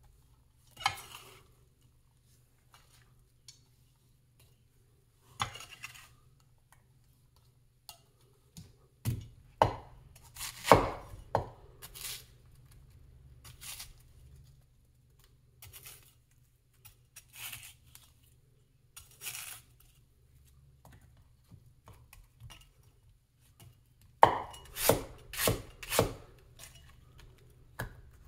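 Large vintage Chinese cleaver cutting red onion on a wooden cutting board: scattered single knocks of the blade through the onion onto the board, then a quick run of chopping strokes near the end.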